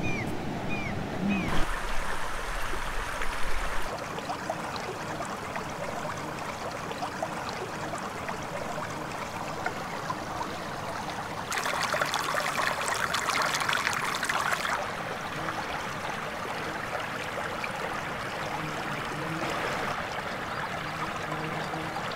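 A mountain stream running over stones, a steady rush of water that changes in loudness and tone at a few points and is loudest and brightest for about three seconds around the middle.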